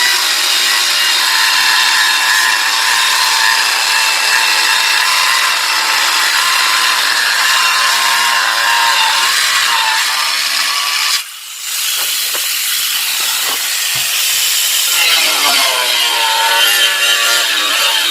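Electric ceramic-tile cutting machine sawing through plywood: a loud, high-pitched whine and hiss of the blade in the wood. It drops briefly about eleven seconds in, then picks up again.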